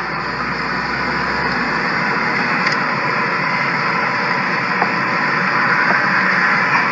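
Steady road and engine noise heard from inside the cabin of a moving car.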